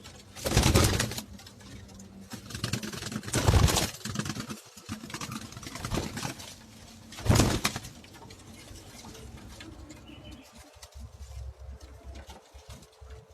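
Domestic pigeons cooing, broken by three loud, brief noisy bursts about half a second, three and a half and seven and a half seconds in.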